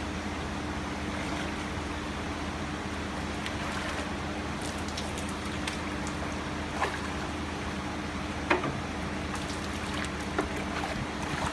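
Steady running, trickling water over a low steady hum. In the second half come three sharp splashes, the loudest in the middle, as koi thrash in a plastic tub of water.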